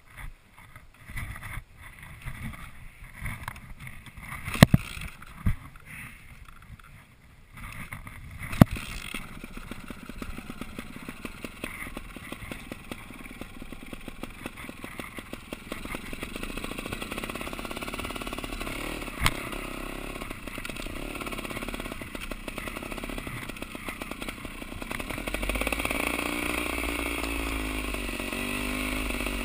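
Trials motorcycle engine running at low revs on a rough trail. At first it is blipped in short bursts, with a few sharp knocks. From about eight seconds in it runs steadily, and near the end the revs rise and fall repeatedly.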